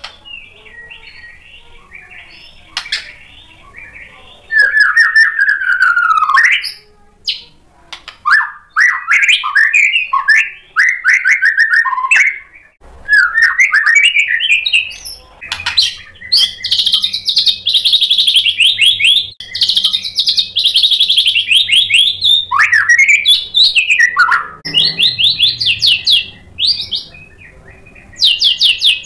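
White-rumped shama (murai batu) singing: soft notes at first, then from about four seconds in a loud, varied string of whistled phrases and fast trills, with a long run of rapid repeated notes in the middle.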